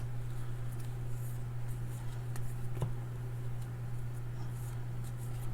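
Faint clicks and rustle of trading cards being flipped through by hand, over a steady low hum.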